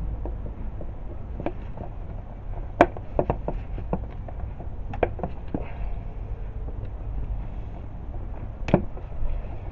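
Irregular clicks and knocks of a screwdriver's Torx bit working at the screws that hold an ignition coil onto its ignition module, with two louder knocks about three seconds in and near the end, over a low steady rumble.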